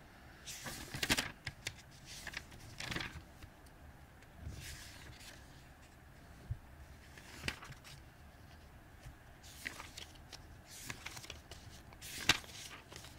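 Pages of a paperback textbook being turned and leafed through: paper rustling and flicking in short bursts many times, the sharpest one near the end.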